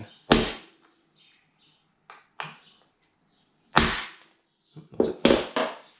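Hammer striking a centre punch held on a blind rivet in a motorcycle exhaust can's end cap, knocking the rivet's pin through: a few separate sharp hits, the loudest about a third of a second in and just before four seconds, with lighter taps between.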